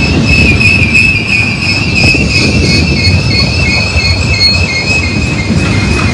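Freight cars of a Union Pacific manifest train rolling past close by: a loud rumble of steel wheels on the rail with a steady, slightly wavering high-pitched wheel squeal over it.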